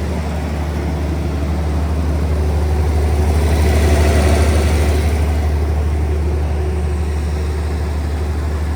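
Generac SD060 60 kW diesel generator set with its John Deere 5030HF diesel engine running steadily, a constant low drone that grows louder and brighter about halfway through, then settles back.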